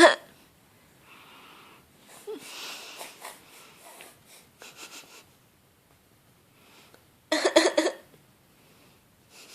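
An 8-month-old baby's put-on, fake cough: a quick run of short voiced cough-bursts about seven seconds in, with soft breathy wheezing and breathing sounds in the seconds before.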